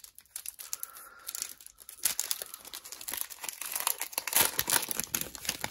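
Foil wrapper of a Panini Prizm basketball card pack crinkling as it is handled and torn open, with a quieter first couple of seconds and dense crackling from about two seconds in.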